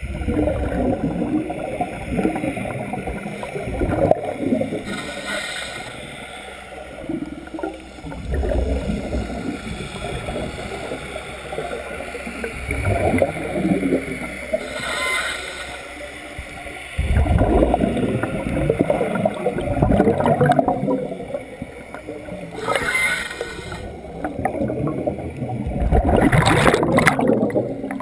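Scuba diver breathing through a regulator underwater: a brief hiss on each inhale, then long bubbling bursts of exhaled air, about four breaths in all.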